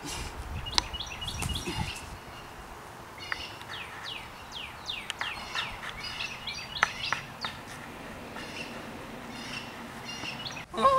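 Small birds chirping over a steady outdoor hiss, in many short, quick, falling chirps scattered throughout. Some low rumbling noise in the first two seconds.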